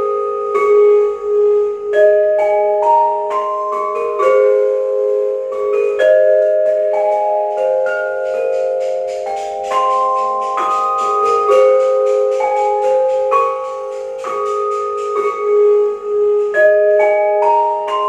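A duet on two metal-bar mallet keyboards with tube resonators, played with yarn mallets. Struck notes ring on and overlap, with a low note sounding again and again under a moving line of higher notes.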